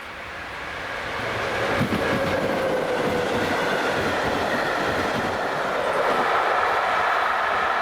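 A train approaching and passing close by, growing louder over the first two seconds and then running on steadily. Wheels clack over the rail joints under a steady high whine.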